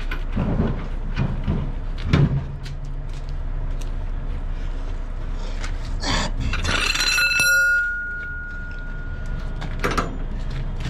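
Metal clinks and knocks from a heavy lorry wheel being worked on, with the wheel nuts handled at the hub. About seven seconds in a metallic ring sounds and fades out over a couple of seconds, over a steady background hum.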